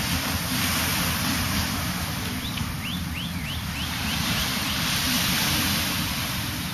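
Steady wind buffeting the microphone over the wash of a beach, with a bird giving a quick run of about seven short falling chirps, fading as they go, about two and a half seconds in.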